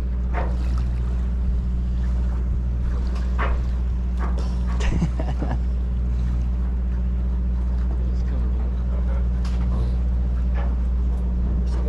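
Fishing boat's engine running with a steady low hum. A few brief faint sounds ride over it, with a sharper knock about five seconds in.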